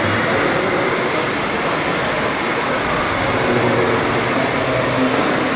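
Steady engine-like drone from an RC model tractor pulling a plough through soil, over a loud, even hall din with indistinct voices.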